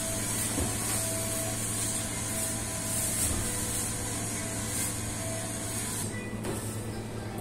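Steady whir of a commercial convection oven's fan running, with a constant low electrical hum underneath.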